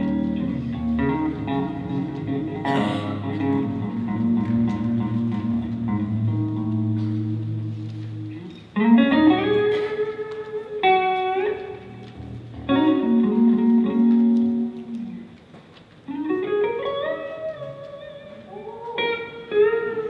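Electric guitars playing a song intro: held chords over a low bass line at first, then, about nine seconds in, a louder lead guitar line in short phrases with notes sliding up in pitch.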